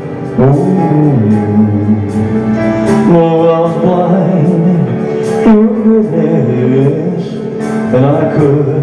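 A man singing a slow ballad into a handheld microphone over backing music, holding long notes with glides between them.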